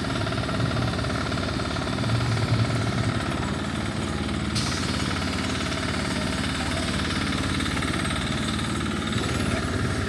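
Jackhammer at a construction site, hammering steadily with a fast, even rattle.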